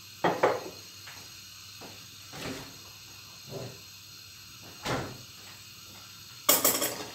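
Kitchen handling sounds: a few scattered light knocks and thumps, then a burst of clattering near the end as a glass bowl of butter is brought to the stainless steel pot.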